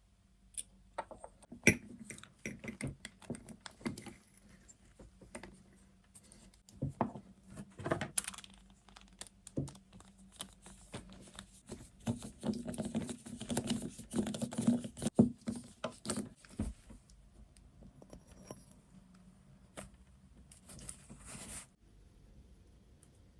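Hands working with small metal parts and tools: irregular clicks, clinks and knocks, with a busier spell of rubbing and scraping about halfway through.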